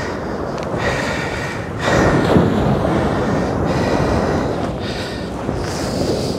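Sea waves surging and breaking on the rock sea defence, a steady wash of surf that swells up about two seconds in, with wind noise on the microphone.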